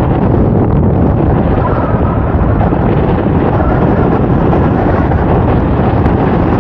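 Rushing wind from the airflow of paraglider flight buffeting the camera microphone: a loud, steady rumble of wind noise.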